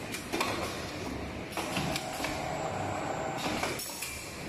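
Automatic wire ring forming and welding machine running as it feeds wire through its straightening rollers: a steady mechanical noise with several sharp clicks.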